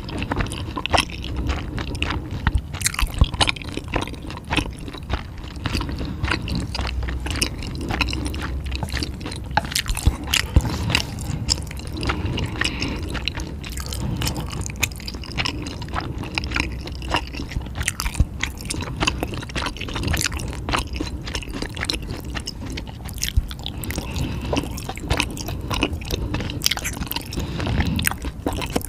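A person chewing and biting into crunchy food, a dense, continuous run of small crisp clicks and crunches.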